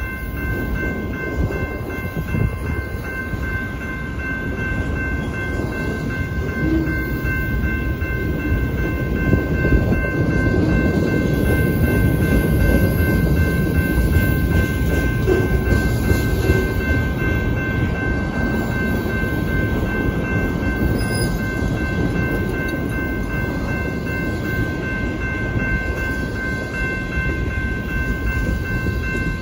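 Freight cars of a long train rolling past close by: a steady rumble and clatter of steel wheels on the rails, with a thin, steady high-pitched whine over it.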